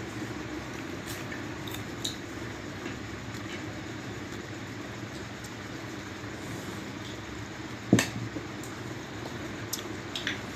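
Chopsticks and spoons clicking and scraping on plates during a meal, with scattered light clicks and one sharper, louder knock about eight seconds in, over a steady background hum.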